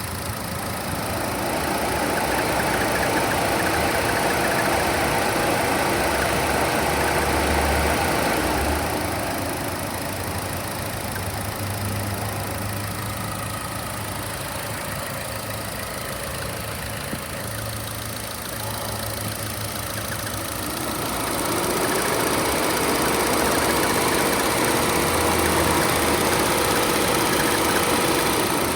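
2014 Chevy Sonic's 1.4L turbo engine idling with the AC on. Twice, for about eight seconds each, the sound swells and a steady high tone comes in over it. The owner describes this noise as a bird-like chirping squeal that appears with the AC running.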